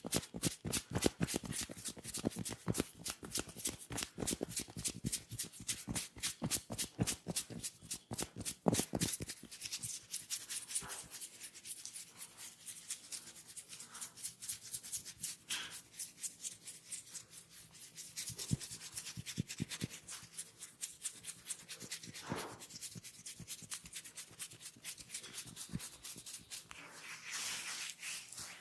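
Head massage: quick, rhythmic rubbing strokes over hair and scalp, about five a second, easing after about ten seconds into lighter, irregular rubbing.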